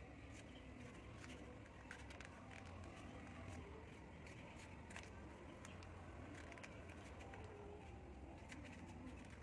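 Faint rustling and crinkling of folded origami paper being handled and slotted together, scattered light clicks over a low steady hum.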